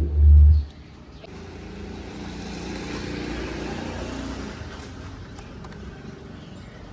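Bluetooth speaker's power-on sound ending in a loud deep bass tone that cuts off under a second in, followed by a rumbling rush of noise that swells and fades over a few seconds.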